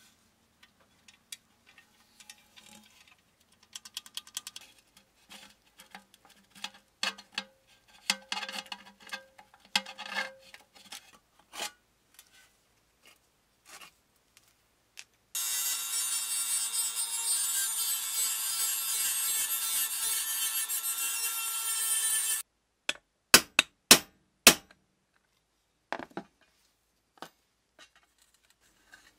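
Metal-on-metal clicks, taps and scraping as hand tools and pliers work a brass box. A loud, steady mechanical noise runs for about seven seconds in the middle and stops abruptly, followed by several sharp clicks.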